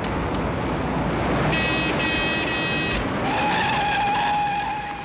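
A car's tyres and brakes squealing as it brakes hard over engine and road noise. A high screech comes in about one and a half seconds in, followed by a lower, steadier squeal that holds until just before the end.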